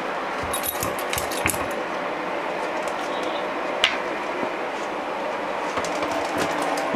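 Puppies wrestling on a hard floor: scattered small clicks and taps, with one sharper click about four seconds in, over steady background noise.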